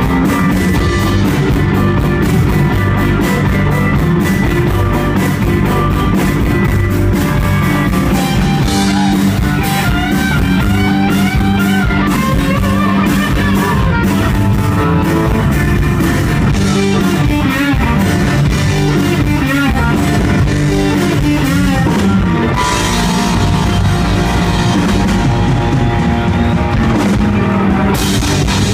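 Live rock band playing an instrumental passage: electric guitar lead with bending, wavering notes over drums and a Hammond XK-3c organ.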